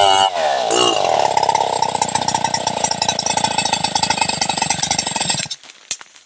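Stihl 070 two-stroke chainsaw cutting into a large log. Its engine speed wavers for about the first second, then holds high under load with a rapid pulsing. About five and a half seconds in it cuts out suddenly, as the bar gets pinched in the cut.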